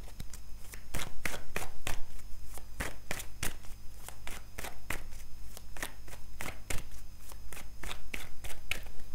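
A deck of tarot cards being shuffled by hand: a quick, irregular run of sharp card slaps and flicks, several a second.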